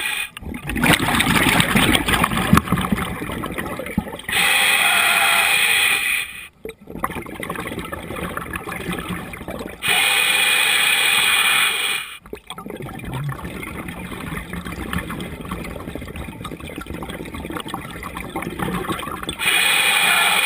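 A scuba diver breathing through a regulator underwater. Three times a steady hiss of inhaled air lasts about two seconds, and between these comes the bubbling of each exhalation, loudest in the first few seconds.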